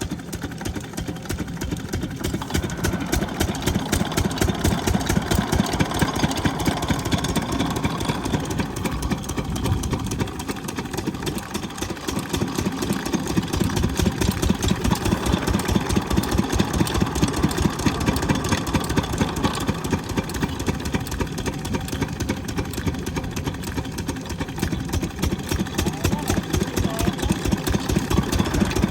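12 hp diesel pump-set engine running steadily, with an even, rapid beat of firing strokes and loudness that swells and eases a little.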